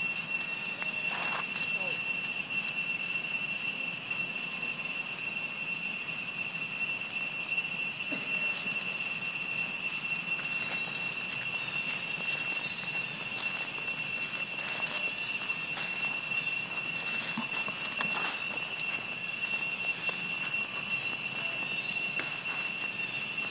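Insects droning in a steady, high-pitched whine that holds on two pitches without a break.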